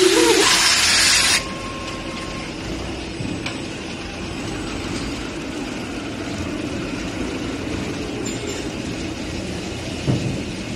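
A loud hiss of air cuts off suddenly about a second and a half in. It leaves the steady running noise of a particleboard production line's conveyors and handling machinery, with a low thump near the end.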